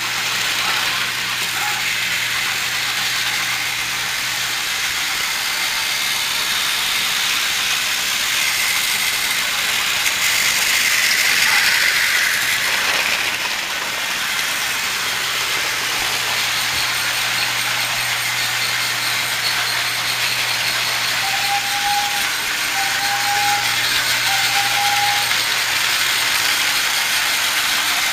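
Battery-powered Thomas & Friends Trackmaster toy train running on plastic track: a steady whirring, rattling motor noise with a constant low hum. Three short tones sound about three-quarters of the way through.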